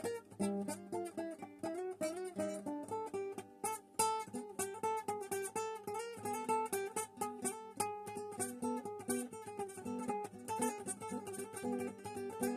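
Acoustic guitar playing a fast, busy melody of many quick picked notes over chords.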